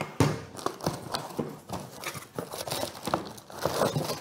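Irregular clicks, knocks and rustling of parts and packaging being handled as the laser engraver's air-assist blower and its adapter are unpacked.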